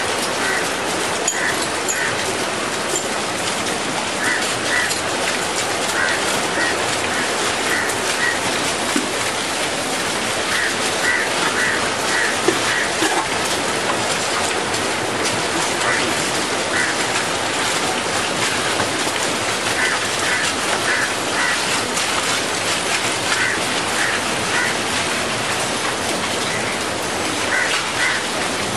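Steady rain falling on wet ground, with a bird giving short high calls in pairs and little runs every second or two.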